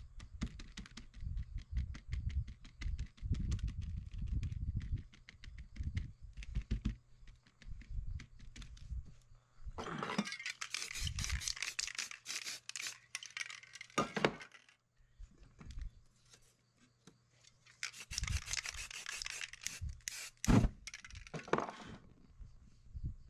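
A wad of crumpled paper dabbed rapidly against a canvas, many quick soft taps. This is followed by two bursts of aerosol spray paint hissing from a can, each a few seconds long, with a couple of sharp knocks during the second.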